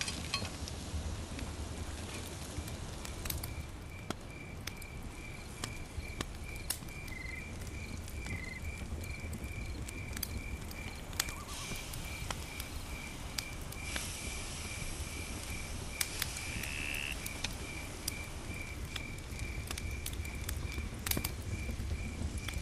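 Wood fire crackling under a grill grate, with scattered sharp pops over a low rumble. A cricket chirps steadily in the background, about twice a second.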